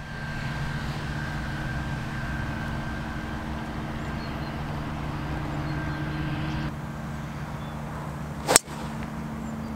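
A golf driver striking a teed ball: one sharp crack near the end. Underneath, a steady motor-like hum that drops a little about two seconds before the strike.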